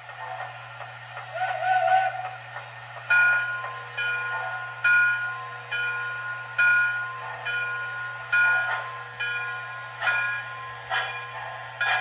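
MTH O-gauge USRA steam switcher's onboard sound system over a steady low hum, playing rhythmic steam chuffs a little faster than once a second that begin about three seconds in, after a brief wavering tone.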